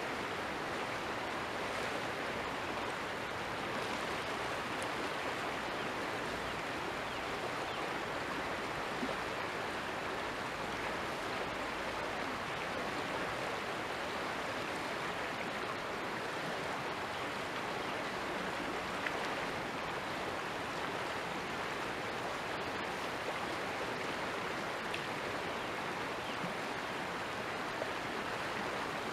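Steady rushing of a creek's running water.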